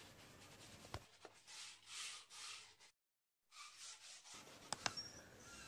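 Faint rubbing of a wet cloth scrubber over a kitchen sink top coated in cleaning liquid, with a few light clicks near the end.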